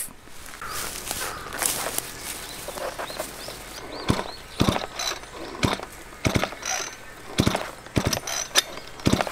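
Backpack brush cutter's recoil starter pulled several times, with ratcheting, whirring pulls and clicks. The pulls are made awkwardly with the machine still on the back, and the engine does not catch.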